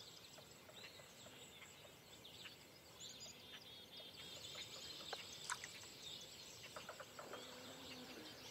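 Faint birds chirping and calling: many short, high chirps and quick whistled notes, some in quick repeated runs, over a quiet outdoor background.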